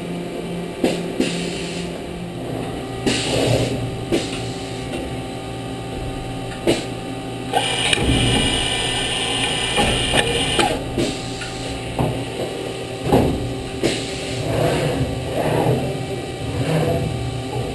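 180-tool magazine and automatic tool changer of a 40-taper horizontal machining center at work: motors whine and hum under irregular mechanical clunks and clicks as the transfer unit moves tool holders. About eight seconds in, a hissing runs for nearly three seconds, ending with a clunk.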